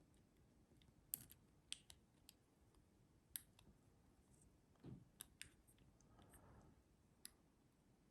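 Faint, irregular metallic clicks of a lock pick and tension wrench working inside the keyway of a Master Lock Pro Series 6321 padlock, with a handful of sharp ticks spread over several seconds.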